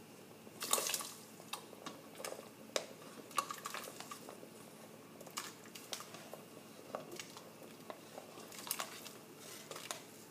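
White plastic spoon scraping and tapping on a plastic cutting board as cubes of cheddar cheese are pushed off into a pot of soup: irregular clicks and scrapes with soft drops into the liquid, the loudest flurry about a second in.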